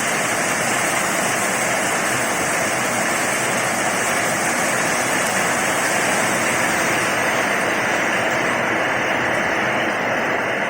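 Heavy rain falling steadily, a dense, even hiss with no thunder claps.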